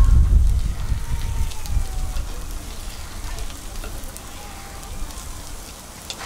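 Chrysanthemum-bread (gukhwappang) batter sizzling in hot griddle molds, with faint crackles. A low rumble is loudest at the start and fades over the first couple of seconds.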